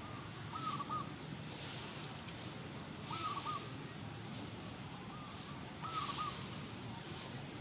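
Outdoor ambience: a bird calls in short phrases of three quick notes, three times clearly with fainter ones between. Under it, a high insect-like buzz pulses about once a second.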